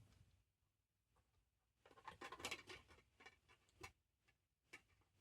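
Faint handling of a DVD and its plastic case: a short stretch of rustling and light clicks about two seconds in, then a couple of single soft clicks.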